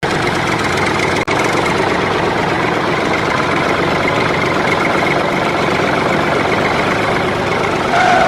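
A small motor running steadily with an even whirring noise. It cuts out for an instant about a second in.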